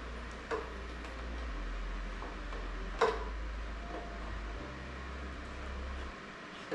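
A few light clicks and knocks of a siphon hose being worked in the open filler of a Ducati Panigale V4S fuel tank while draining it, the loudest about three seconds in, over a steady low hum that stops near the end.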